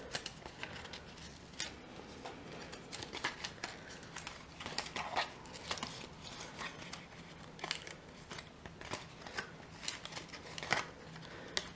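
Cardstock being folded by hand along its perforated lines into a box lid: quiet, scattered crackles and small taps of the card as it is creased.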